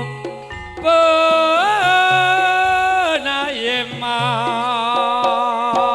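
Traditional Javanese–Madurese kuda kencak ensemble music: a loud melody of long held notes with wavering pitch and quick ornaments, over drums and low gong-like strokes.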